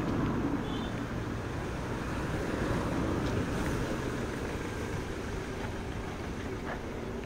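Steady rushing wind and road noise from riding a city bicycle along an asphalt street.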